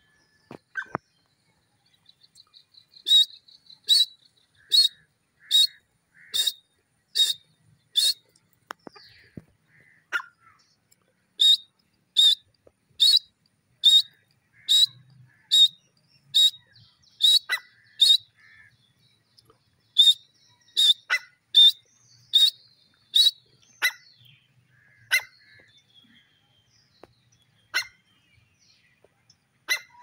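Grey francolin calling: loud, shrill notes repeated evenly a little under one per second, in runs of several seconds with short breaks, thinning out to scattered single calls near the end.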